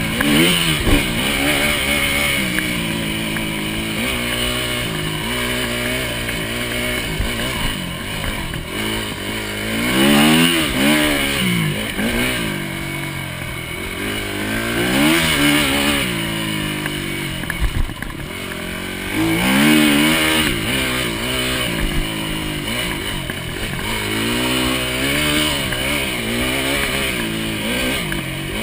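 Enduro dirt bike engine heard from a camera mounted on the bike, racing hard: the revs climb and drop again and again as the rider accelerates, shifts and backs off along the course, with several sharp rising surges.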